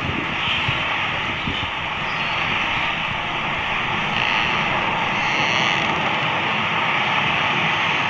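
Strong storm wind blowing steadily through a snowstorm, an even rushing noise that grows a little louder about halfway through.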